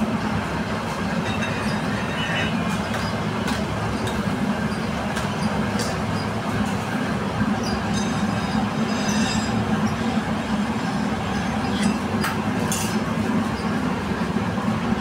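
Steady low mechanical rumble, like a running motor or machine, with a few light clicks over it in the second half.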